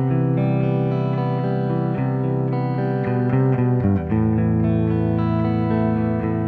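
Electric guitar played through the Playwell Tank-G multi-effects pedal on its preset 9A: sustained chords ringing out, moving to a new chord about four seconds in.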